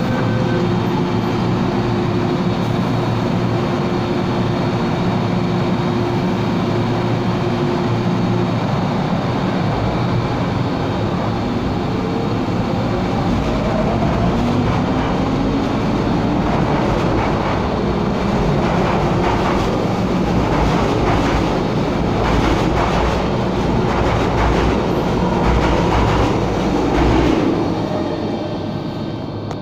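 MTR M-Train electric multiple unit pulling out of the platform. A steady tone stops after about eight seconds, then the traction motors give a rising whine as the train gathers speed. Repeated wheel clatter on the rails grows as the cars run past, and the sound fades near the end.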